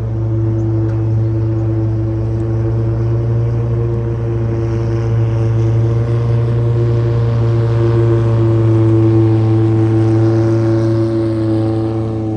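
Boat engine running at a steady speed, with the rush of water along the hull that swells about two-thirds of the way through.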